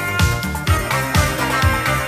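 Background music: 80s-style electronic pop with a steady drum beat, about two beats a second.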